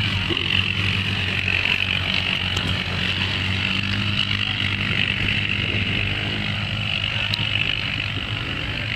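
Quad bike (ATV) engines running steadily, a low even hum with a steady high-pitched hiss above it.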